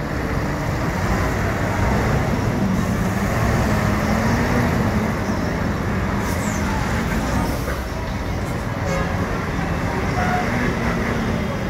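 Heavily loaded truck's diesel engine working under load as the truck drives slowly across a dirt yard. Its note rises and falls a little with the throttle.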